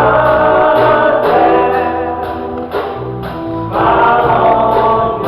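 Gospel song sung by several voices together with instrumental backing: long held sung notes over a bass line, with a light high percussion tick keeping a steady beat about twice a second.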